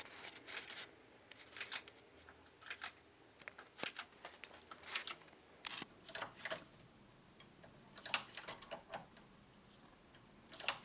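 Irregular light metallic clicks and ticks as yarn loops are lifted one at a time off the latch needles of a Brother KH260 knitting machine onto a threaded hand transfer needle.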